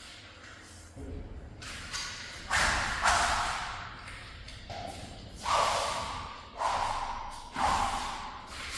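Sword drill: a series of sharp strikes, about one a second, each dying away quickly and getting louder as the drill goes on.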